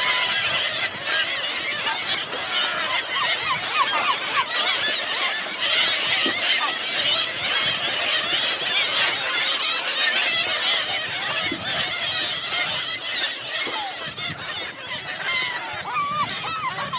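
A large flock of gulls calling all at once, a dense, continuous din of many overlapping squawks and cries, as hungry birds do at a food source.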